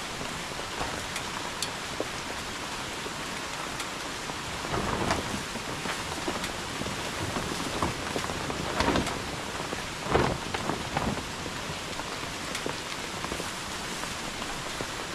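Steady rain falling, with scattered sharp drops striking close by. A few louder rustling swells about five, nine and ten seconds in come from a large plastic tarp being dragged over stacked sacks.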